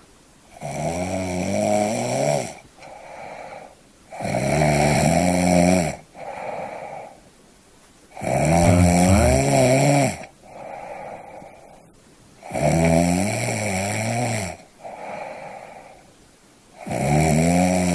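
A person snoring in a steady rhythm: a loud, pitched snore of about two seconds roughly every four seconds, each followed by a shorter, softer breath.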